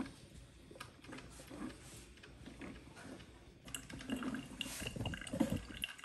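Drip coffee maker brewing, hot coffee dripping and trickling into its glass carafe.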